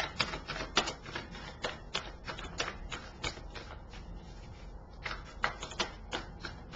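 Tarot cards being handled as clarifying cards are pulled from the deck: a run of sharp, irregular card clicks and snaps, several a second, with a pause of about a second a little past the middle.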